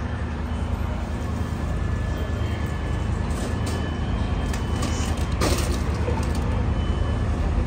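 Fire truck engines idling, a steady low hum, with a brief clatter about five and a half seconds in.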